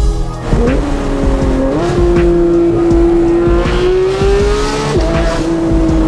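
Porsche 911 GT3 (991.2) naturally aspirated 4.0-litre flat-six through a full Fi aftermarket exhaust, running loud under load. Its pitch steps up twice early on, climbs, then drops sharply about five seconds in, as at a gear change. Background music with a beat plays underneath.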